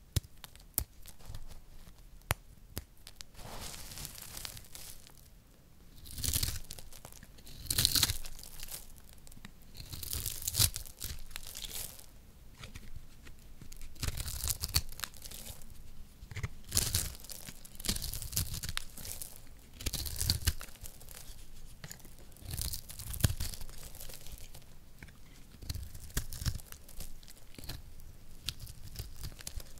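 Dry soap crumbled between fingers, then a knife blade cutting and shaving into a round puck of pressed recycled soap: crisp, crunchy scraping strokes that come irregularly, about one every second or two.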